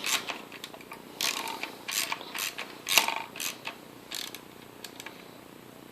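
A wrench working a bolt down into Helicoil-repaired threads in an Atlas lathe's gear case: a series of short metallic clicks and rasps about every half second, stopping about four seconds in. The bolt is now tightening properly in the repaired threads.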